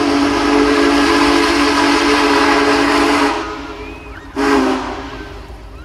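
Union Pacific 4014 Big Boy steam locomotive's whistle blowing a loud chord of several notes over rushing steam, cutting off about three seconds in, then one short blast about a second later.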